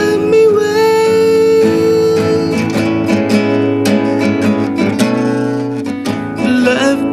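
A man singing a slow song, accompanying himself on a nylon-string classical guitar.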